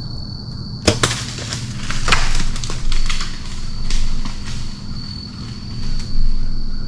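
Clothing and gear rustling and brushing close to the microphone as a hunter shifts in a tree stand and picks up his compound bow: a sharp click about a second in, then several bouts of swishing. A steady high insect trill runs underneath.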